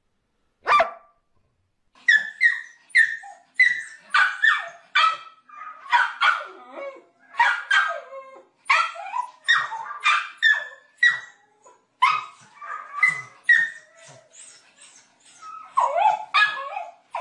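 One sharp bark from a grey-muzzled black-and-white dog. Then, from about two seconds in, a small white terrier barking and yipping without pause, roughly two short barks a second, many sliding in pitch like a whine.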